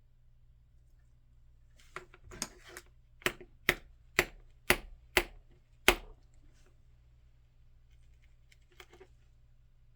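Sharp metallic clicks and taps from an EVVA ICS lock being taken apart as its top pins are worked out: a quick run of about seven clicks, roughly two a second, then a couple of faint clicks near the end.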